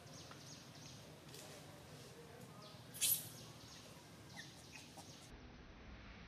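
Faint, short, high-pitched chirping calls scattered throughout, with one louder, sharp, shrill squeak about three seconds in.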